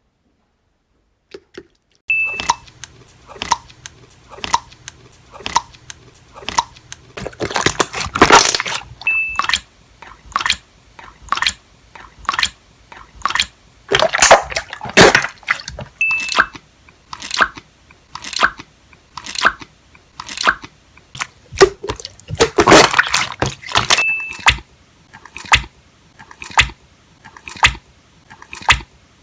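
Slime dropped again and again, landing with short wet splats and squelches about once or twice a second, starting about two seconds in.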